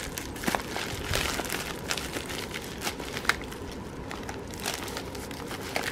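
Thin clear plastic packaging crinkling and rustling as it is handled and pulled open, with many short sharp crackles.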